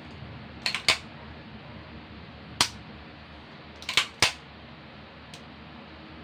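Sharp metallic clicks from the Rock Island Armory Tac Ultra FS HC 1911 pistol being dry-fired to show its single-action trigger: the hammer is cocked and snaps forward as the trigger breaks. About seven short clicks at uneven spacing, in a pair about a second in, a single one, and a quick cluster about four seconds in.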